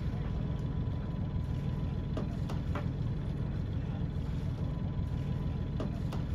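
Sailing yacht's inboard diesel engine idling steadily at about 1,100 rpm: an even low rumble, with a few faint clicks.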